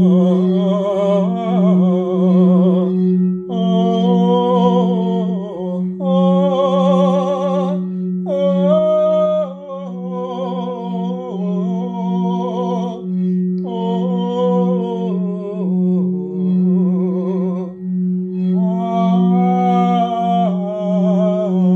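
A crystal singing bowl rings one steady low tone with a slow pulsing beat, under wordless vocal toning: sustained, wavering sung vowels in phrases a few seconds long with short breaks between them.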